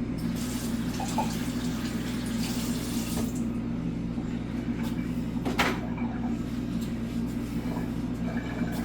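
Pot of water at a rolling boil on the stove, a steady bubbling rush, with one light knock a little after halfway.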